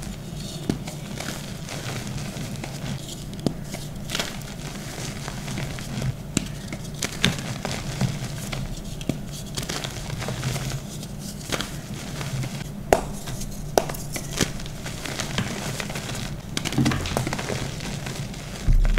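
Hands crushing blocks of gym chalk and squeezing the loose chalk powder, giving soft crunching and rustling with many short, sharp crackles scattered throughout.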